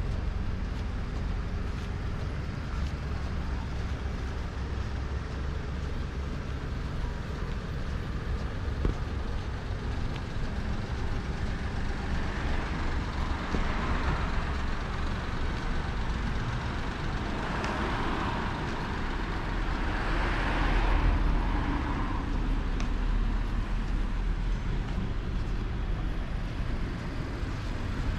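Street traffic: a steady low rumble, with vehicles passing one after another about halfway through, each swelling and fading.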